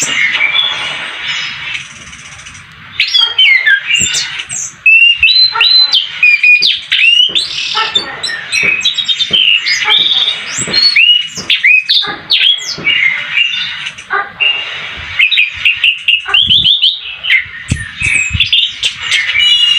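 Orange-headed thrush (anis kembang) singing a long, varied rolling song of rapid whistled phrases, slurred glides and trills, with a brief lull about two seconds in. The bird has fresh plumage after its moult and is just coming into full song.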